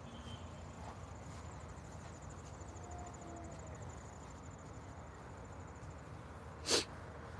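A thin, high insect trill, cricket-like, pulsing finely through the first half or so, over a steady low background hiss. A single sharp click comes near the end.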